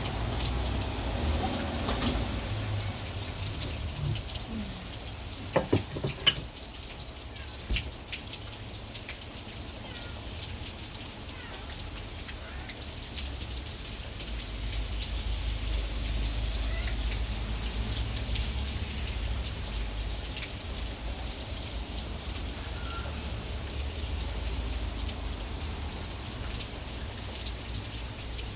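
Heavy rain falling steadily. A few sharp knocks come close together about six seconds in.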